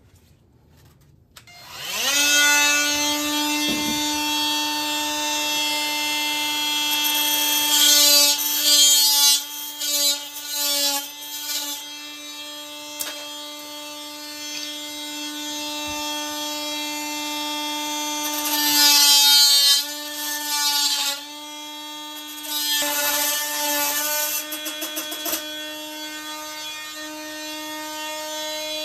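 Oscillating multi-tool cutting off toilet shims: the tool starts about a second and a half in and runs with a steady whine. It grows louder and rougher twice as the blade bites into the shims, and it winds down at the end.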